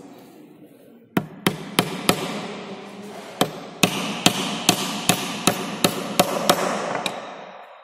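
Hammer driving nails into a plywood box: four quick sharp blows about a second in, a short pause, then a steady run of about ten more at two to three a second.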